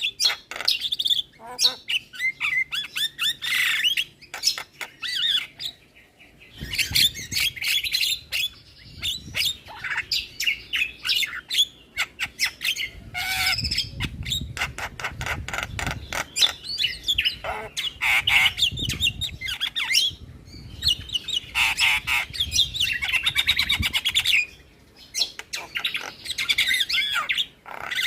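Javan myna singing a rapid, varied stream of chirps, squawks, whistles and rattling clicks, with short breaks about six seconds in and near the end.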